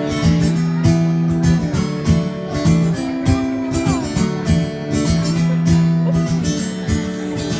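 Acoustic guitar strummed in sustained chords, a short instrumental passage of a live song.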